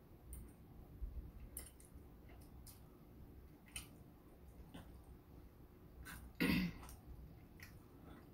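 Faint close-up eating sounds: a fork clicking and noodles being handled and chewed, with a brief throat-clearing sound about six and a half seconds in.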